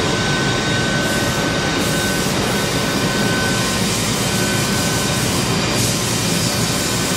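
Haas DS-30Y CNC turning centre running a job, machining billet aluminum into steering wheel hubs with coolant flooding the enclosure: a steady, dense wash of machine and spray noise with a thin, steady whine through it.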